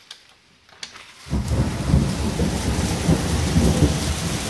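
Hailstorm: a few single hailstones tick, then about a second in a heavy burst of hail and rain starts pelting down all at once, a loud, dense rush with a deep rumbling low end that holds steady.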